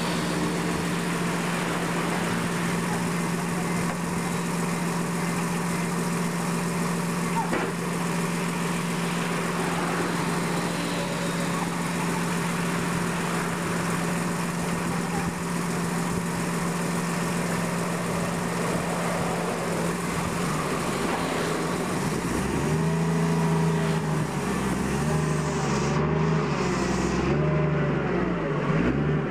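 Large diesel forklift engine idling with a steady low hum. From about two-thirds of the way through it gets a little louder and its pitch wavers up and down.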